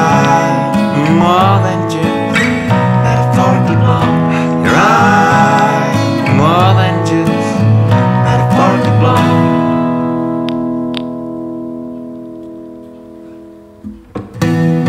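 Guitar-led indie band music playing, which breaks off about nine seconds in to a last chord left ringing and slowly fading out. A new piece of guitar music starts abruptly near the end.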